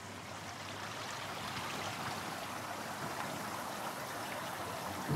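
Steady rushing noise like running water, growing a little louder over the first couple of seconds and then holding even.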